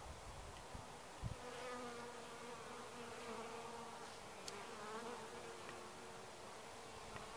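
Honeybees buzzing in flight at a hive entrance, a steady hum whose pitch rises and falls as single bees fly past close.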